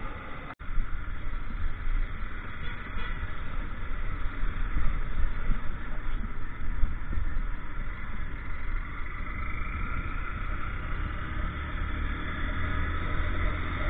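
Honda motorcycle being ridden on a rough road: the engine running under a steady rush of wind rumbling on the microphone, with a brief dropout about half a second in.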